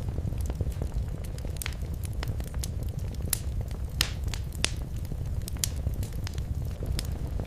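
Wood fire in a fireplace crackling and popping over a steady low rumble, with two louder pops about four seconds in.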